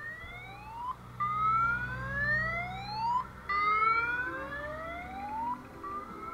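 A whoop-style siren sounding repeated rising sweeps, each about two seconds long and cutting off sharply at the top before starting again, with the low hum of an engine underneath in the first half.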